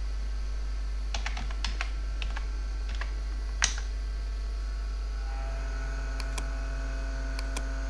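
Computer keyboard being typed on: a quick run of keystrokes about a second in, then a few more and one louder keystroke near the middle, followed by a few sparse clicks. A steady low electrical hum lies underneath.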